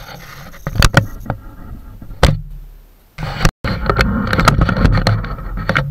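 Loud handling noise close to the microphone as gear is put away: a few sharp knocks in the first couple of seconds, then a stretch of dense clattering and rubbing. The audio cuts out for an instant about halfway through.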